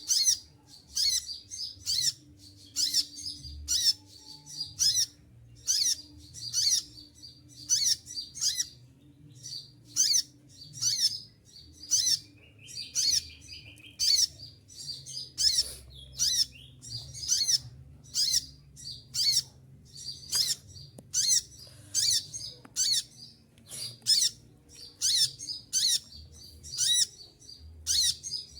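A konin (kolibri ninja sunbird) calling over and over: short, sharp, high-pitched notes repeated about once a second without a break.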